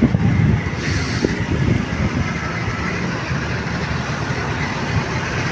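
Steady low rumble of a large vehicle's engine and road noise, with no horn sounding.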